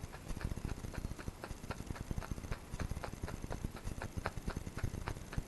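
Barbed felting needle stabbing repeatedly into a ball of felting wool. It makes a steady run of short clicks, about four or five a second, as the barbs catch and push the fibres in.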